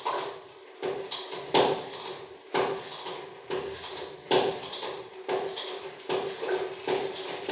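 Repeated knocks, roughly one a second with smaller ones between, over a low steady hum.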